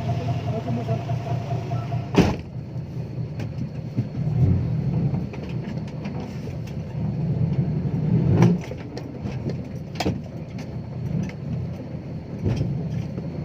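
Six-wheel dump truck's diesel engine running under way, a steady low rumble that swells a little around 4 and 8 seconds in. A steady whine stops about two seconds in, and sharp knocks come about two, eight and ten seconds in.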